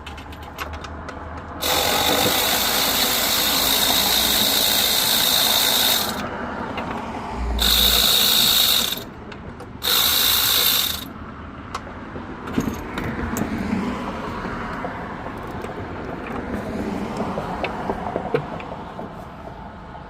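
Ratchet wrench with an 8mm socket spinning fasteners off the intake manifold in three runs of rapid ratcheting: a long one of about four seconds, then two short ones. Lighter clicks and tool handling follow.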